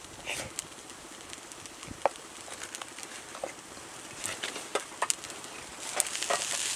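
Scattered light clicks and taps of a spoon against a small metal frying pan while eating, with a steady hiss coming up near the end.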